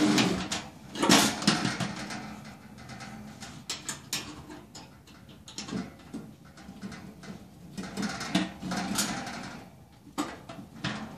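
Handling noise from assembling a portable propane grill's lid hinge: irregular clicks, taps and rubbing of metal and plastic hinge parts as they are worked into place by hand. The loudest knock comes about a second in.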